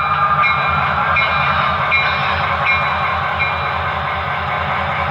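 HO-scale Broadway Limited F7 diesel locomotives' Paragon 4 sound decoders playing a steady diesel engine sound with a pulsing low rumble as the units crawl at their lowest speed step. A light tick repeats a little under a second apart through the first few seconds.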